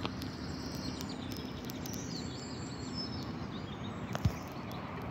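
Steady outdoor background noise with small birds chirping high above it, and a single dull thump about four seconds in.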